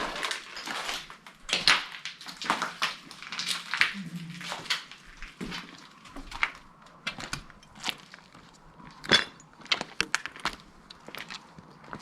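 Footsteps crunching over rubble and debris: irregular crunches and knocks, with one sharper knock about nine seconds in.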